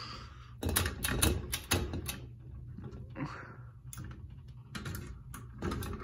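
A run of sharp clicks and knocks as a ceiling fan's pull-chain switch housing and light fixture are handled, in two clusters near the start and near the end, over a low steady hum.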